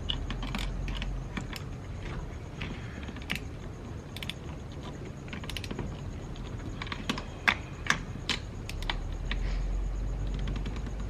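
Irregular small metallic clicks and taps of a hand tool tightening the nuts on new battery terminal clamps, with two sharper clicks close together about seven and a half seconds in.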